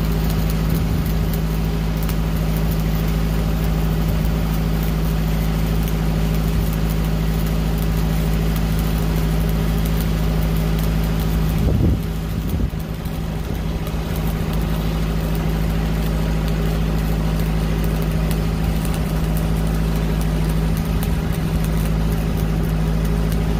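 Stick-welding arc crackling as an 8018 rod runs the uphill hot pass on a pipe-to-flange joint, over the steady drone of a Lincoln Pipeliner 200D engine-driven welding machine under load. There is a brief break in the sound about halfway through.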